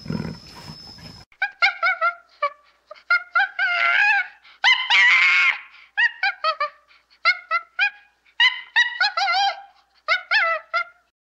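Tiger growling, cut off abruptly about a second in. Then an animal's short pitched calls, rising and falling, in quick runs of three to five notes with brief gaps between.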